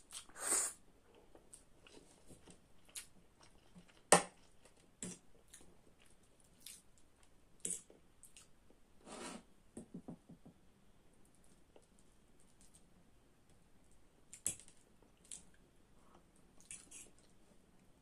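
Close-up eating sounds: noodles slurped in near the start, then quiet chewing. Metal cutlery clicks sharply against the plate and rice bowl now and then, loudest about four seconds in.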